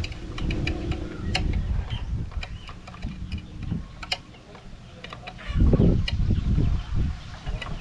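Wind buffeting the microphone in uneven gusts, the strongest about five and a half seconds in. Scattered light clicks and taps come from hand-fastening a plastic light bracket onto a bamboo pole.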